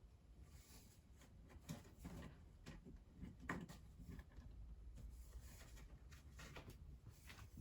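Faint scratching and rustling on cardboard, a scatter of soft scrapes and taps, from a kitten playing in a cardboard box.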